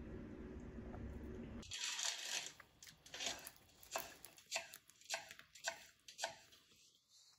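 A steady low noise that cuts off abruptly, then a run of sharp crisp strokes about twice a second, like a knife chopping food on a cutting board.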